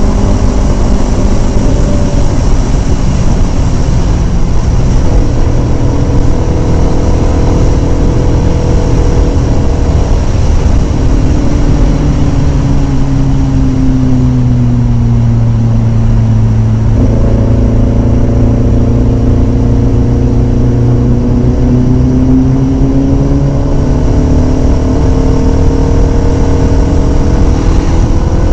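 Kawasaki Ninja sport bike engine running at highway speed over a steady rush of wind on the microphone. Its note sinks slowly as the bike eases off, jumps up sharply at a downshift about halfway through, then rises steadily as it accelerates.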